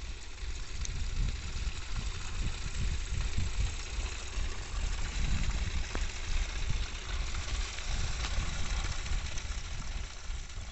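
Tractor engine running steadily with a low rumble, the tractor that hauls the water tanker for watering the mango trees.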